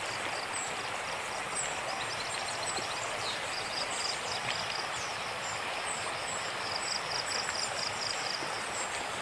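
Steady rush of the Dikhow river in flood, its swollen muddy water running fast past the bank. High, rapid chirping rises above it from about a second and a half in.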